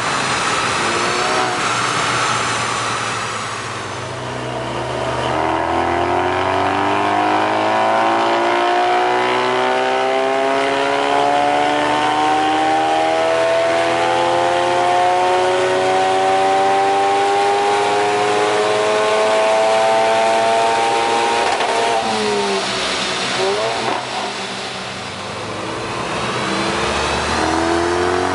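Ford Focus RS MK3's turbocharged 2.3-litre four-cylinder with a Milltek sport exhaust, running under load on a chassis dyno. After a brief drop in revs about four seconds in, it makes a long full-throttle pull, its pitch climbing steadily for some sixteen seconds. The revs then fall away as it winds down, and pick up again near the end.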